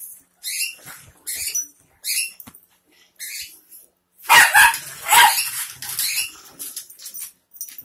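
Two small dogs play-fighting, giving a string of short, noisy snarls and snorts about a second apart. The loudest snarls come in a cluster about four to six seconds in.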